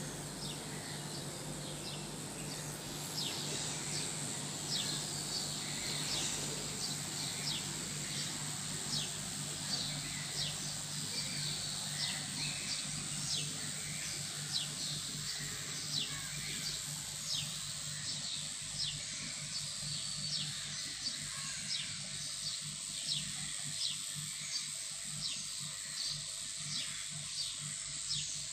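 A songbird repeating a short, high, falling whistle-note over and over, about once or twice a second, starting a few seconds in. Behind it are a steady high-pitched drone and a low steady hum.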